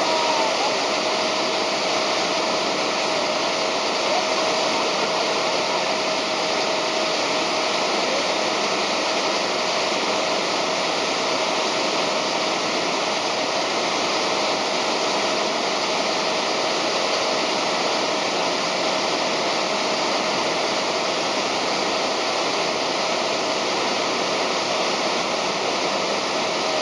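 Churning water of a motorboat's wake rushing steadily behind the stern, with the boat's engine running underneath and a faint steady whine.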